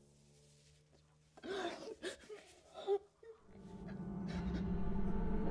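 A young man whimpering and groaning in distress for about two seconds. Then a low music drone fades in and grows steadily louder toward the end.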